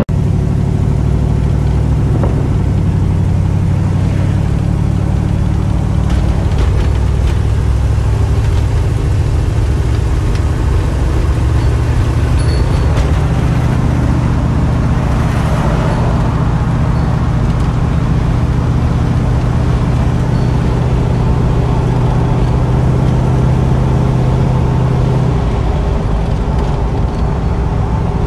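The 1973 Dodge Dart Swinger's 318 V8 with dual exhaust running as the car drives along, heard from inside the cabin together with road noise. The engine note shifts in pitch a few times.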